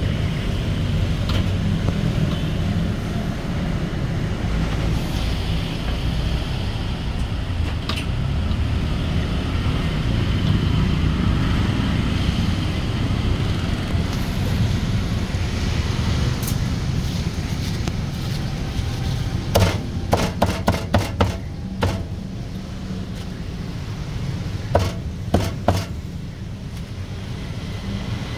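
A cleaver chopping roast duck on a cutting board: a quick run of about eight chops about twenty seconds in, then three more a few seconds later, over a steady rumble of street traffic.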